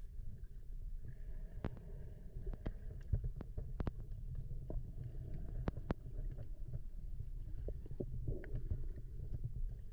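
Underwater ambience picked up by the camera below the surface: a steady low rumble of moving water with many scattered sharp clicks and crackles.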